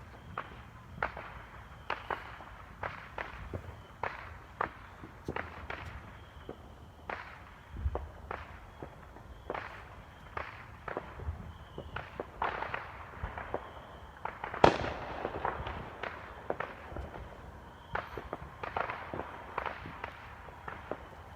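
Fireworks going off around the neighbourhood: an irregular string of sharp pops and bangs, one or two a second, with one louder bang about two-thirds of the way through.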